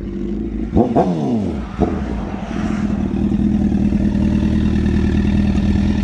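Motorcycle engines: about a second in, two quick throttle blips whose pitch falls away fast, a shorter third one just before the two-second mark, then a steady idle.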